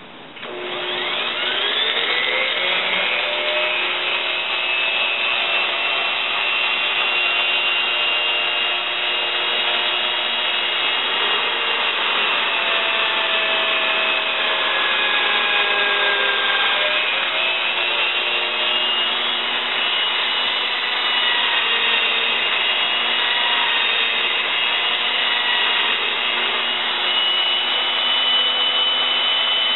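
A Harbor Freight 1/2-inch hammer drill switches on about half a second in, its motor whine rising as it spins up. It then runs steadily, the whine shifting in pitch, while the bit bores down into a block of wood.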